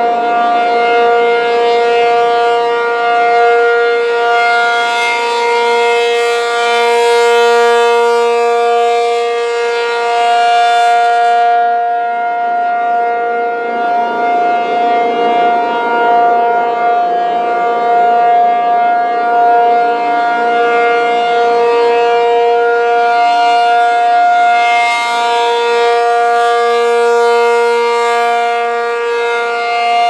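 ACA P-50 rotating outdoor warning siren sounding its steady alert signal, a held two-note tone. The sound swells brighter twice and then fades as the turning horn sweeps toward and then away from the listener.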